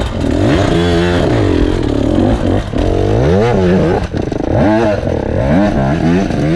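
Enduro dirt bike engines revving up and down in short throttle bursts as the bikes climb a rocky trail, the pitch rising and falling again and again.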